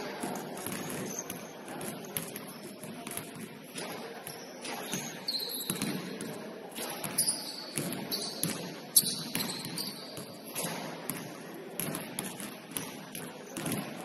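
Basketball bouncing on a gym floor during play, with several short, high sneaker squeaks.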